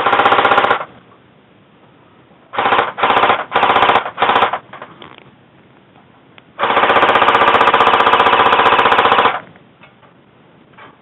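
Automatic airsoft gun firing in rapid full-auto bursts: one burst right at the start, four short bursts a few seconds in, then one long burst of about two and a half seconds.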